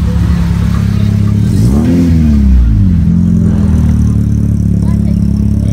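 Car engine running at low revs with a deep, steady exhaust note, blipped up and back down once about two seconds in, as a boxy 1990s Volkswagen two-door sedan rolls past.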